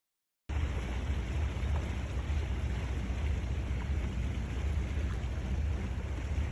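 Steady outdoor rumble and rushing noise aboard a boat, mostly wind on the microphone, cutting in suddenly about half a second in.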